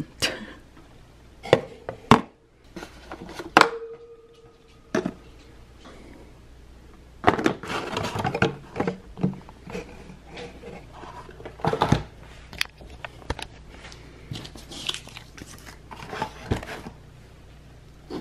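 Small plastic jars clicking and knocking against each other and the cardboard as they are packed into a small cardboard box, with stretches of cardboard and paper rustling.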